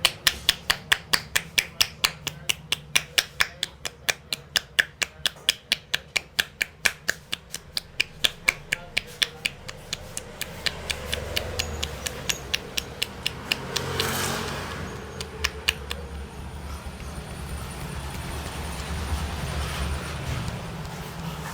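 Rapid rhythmic hand slaps of a vigorous head massage, sharp and even at about five a second. They grow faint and stop a few seconds before the end, leaving steady street noise.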